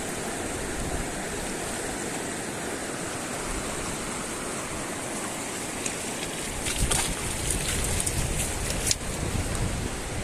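Fast-flowing river water rushing steadily. About six seconds in, a run of sharp irregular splashes and knocks comes in over the flow.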